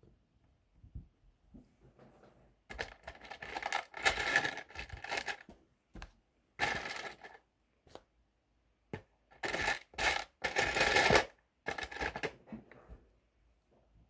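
Small plastic Lego pieces clattering and rattling against each other as a hand rummages through them, in four bursts of a second or two.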